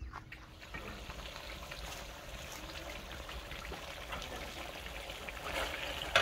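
Buffalo curry bubbling and crackling in a metal wok over a wood fire, with a ladle stirring. A sharp clink comes right at the end.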